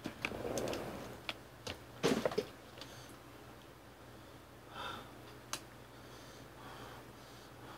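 Close-miked eating and handling sounds: a run of sharp clicks and knocks, loudest just after two seconds, then a few faint ticks and mouth sounds.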